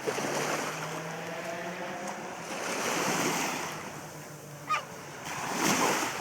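Ocean waves washing in on the shore, the rush swelling twice, with a brief sharp noise between the swells.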